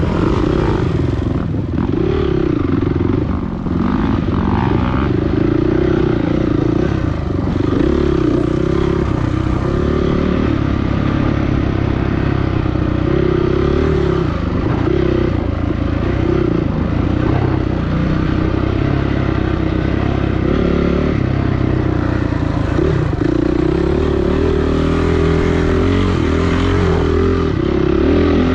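Dirt bike engine running hard over rough off-road terrain, its pitch rising and falling constantly as the throttle is worked, with clattering from the bike.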